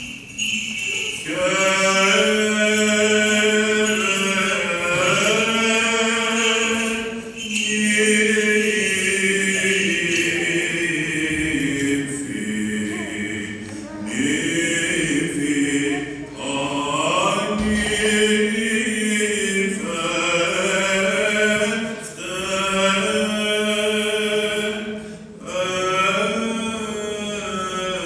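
Greek Orthodox Byzantine chant, sung by church chanters in long melodic phrases over a steady low held note. The singing pauses briefly between phrases, echoing in a large church.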